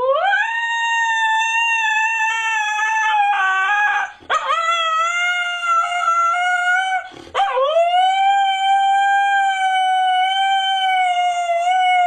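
Siberian husky howling: three long, held howls with short breaks about four and seven seconds in, the last one sliding up into its note and each later howl a little lower in pitch.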